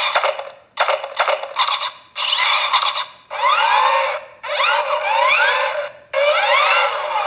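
Thinkway Toys RC Buggy and Woody toy's electronic sound chip playing its stored sound effects one after another in test mode, through a small tinny speaker. It plays a series of short electronic bursts about a second each with brief gaps, the later ones with swooping rises and falls in pitch.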